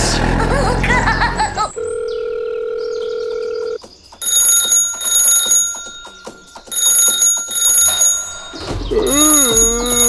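Phone ringing: a steady tone for about two seconds, then an electronic ringtone in repeated bursts with short gaps. A high, gliding voice comes in near the end.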